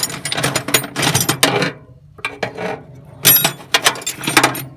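A steel spanner clinking and clicking against a nut on a Jiangdong diesel engine as the nut is worked loose, in three quick bursts. The fitting is being loosened to bleed the fuel system after the engine ran out of diesel.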